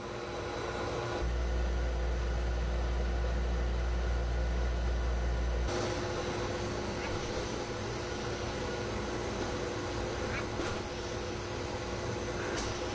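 Pet blow dryer running steadily into a drying cage: a constant motor hum with one steady tone over rushing air, with a deeper rumble added for a few seconds starting about a second in.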